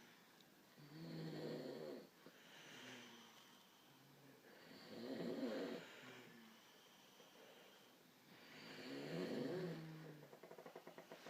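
Snoring: three long snores about four seconds apart, with quieter breaths between them, and a rapid fluttering rattle near the end.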